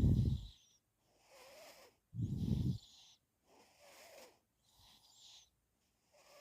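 Snoring and breathing of a sleeper: two loud, low snores about two seconds apart near the start, then softer, quieter breaths about once a second.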